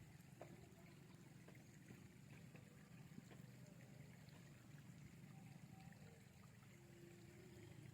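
Near silence: faint steady low background noise with a few light clicks.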